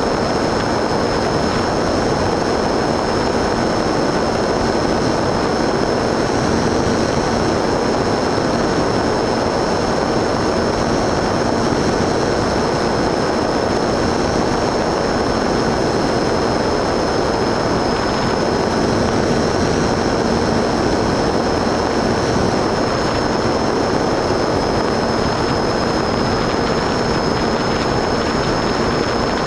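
Onboard sound of a radio-controlled FPV aircraft in flight: a steady drone of motor and propeller mixed with wind rushing over the camera, with a thin high whine held throughout.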